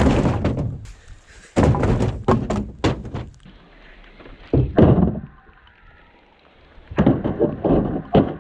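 Wooden boards and plastic toolboxes knocking and thunking as they are dropped and set down in a pickup truck's plastic bed liner. The knocks come in clusters: at the start, from about a second and a half in, around the middle, and again near the end.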